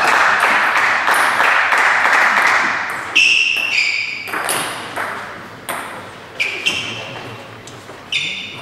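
A rush of crowd noise from the hall for about three seconds, then a table tennis ball pinging on the table in about eight separate short bounces, irregularly spaced half a second to a second apart.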